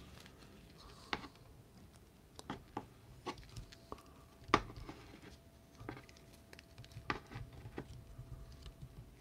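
Faint, irregular small clicks and taps of hands and a small screwdriver working a plastic action figure, pushing a soft rubber part into place. The loudest tap comes about four and a half seconds in.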